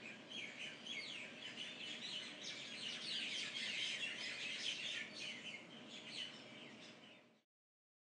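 Dawn chorus of many small birds chirping together, quick high calls overlapping densely. It cuts off suddenly near the end.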